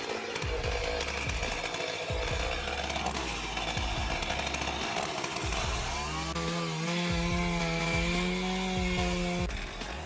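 Chainsaw running steadily while cutting a tree, settling into a held high-revving tone from about six seconds in.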